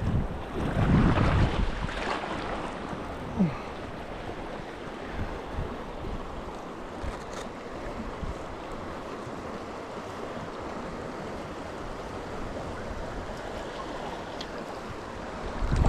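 River current rushing: a steady wash of flowing water, with wind buffeting the microphone in the first couple of seconds.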